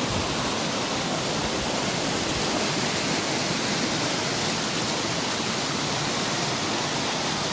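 Mountain river rushing steadily over rocks: a loud, even rush of water.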